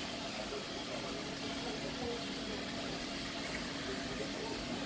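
Electric dog clippers with an attachment comb running steadily as they cut a cocker spaniel's soft coat, a constant motor hum.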